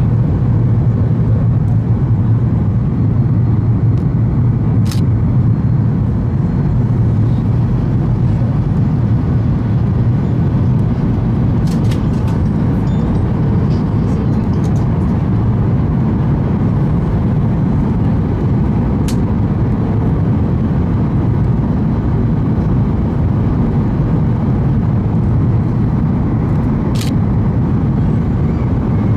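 Steady cabin rumble of a Boeing 737-800 with CFM56-7B turbofans, heard from a window seat over the wing during the approach with flaps extended: engine and airflow noise. A few brief clicks sound through it.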